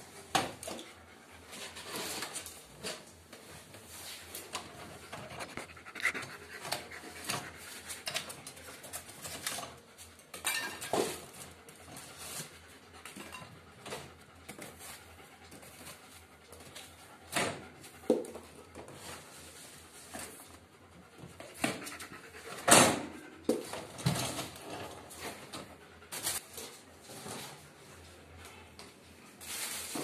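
Clinks, rattles and knocks from a new Voltas Beko DT88 countertop dishwasher's door, stainless steel tub and wire racks being handled as packing material is pulled out, with one louder knock about three-quarters of the way through.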